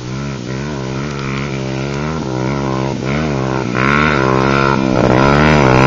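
Dirt bike engine revving up and down over and over as the rider works the throttle, growing louder about four seconds in.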